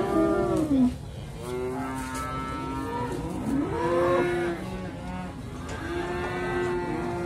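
Cattle mooing: about four long moos one after another, some rising and falling in pitch, others held level.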